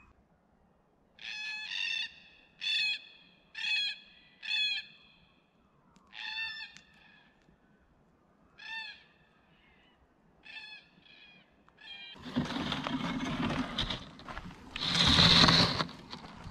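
A bird calling, a run of four evenly spaced calls about a second apart, then several more scattered calls. About four seconds before the end a loud rushing noise takes over.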